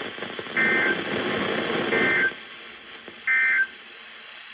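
NOAA Weather Radio EAS/SAME end-of-message data bursts: three short two-tone digital warbles, evenly spaced about a second apart, marking the end of the severe thunderstorm warning broadcast. They play over radio hiss that drops off sharply about two seconds in.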